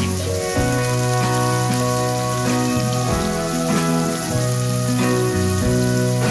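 Background music with sustained low notes that change every second or two, over a steady hiss of onions, tomatoes and capers sizzling in a frying pan.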